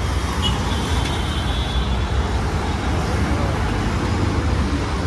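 Road traffic passing: a steady low rumble of vehicle engines, with a faint high tone for about two seconds near the start.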